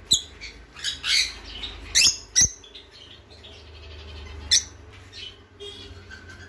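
Conure giving a run of short, sharp squawks, most of them in the first two and a half seconds and one more about four and a half seconds in, with one sharp knock among them.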